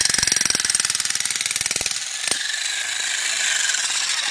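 Stark 2200 W electric demolition hammer with a spade bit running, rapid hammer blows driving the bit into packed dirt. About two seconds in, the blows give way to a steadier whir of the running tool, with a single knock.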